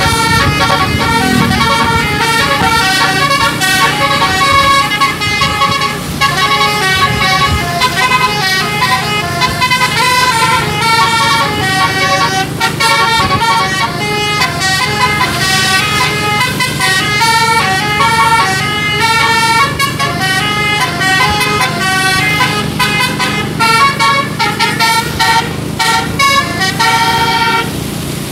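Bus musical air horn (telolet) playing classic telolet tunes: a long run of quick melodies whose notes change several times a second, over a steady low engine hum.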